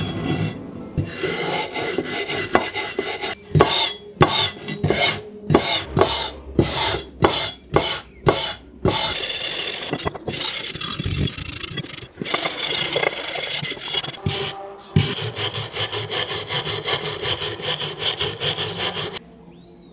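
Hand wire brush scrubbing rust off an old iron axe head, a rasping scrape. Separate back-and-forth strokes come about two a second, then faster continuous scrubbing that stops abruptly shortly before the end.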